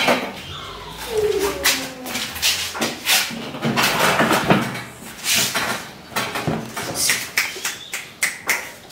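Irregular clicks, knocks and rattles as the wire door of a plastic dog carrier is handled and opened, with a short falling whine about a second in.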